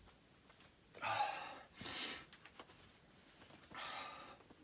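A person's heavy breathing: three breathy puffs of air, at about one, two and four seconds in.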